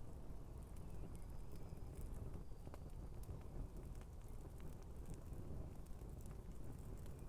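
Campfire burning shoes: a steady low rush of flame with scattered sharp crackles and pops.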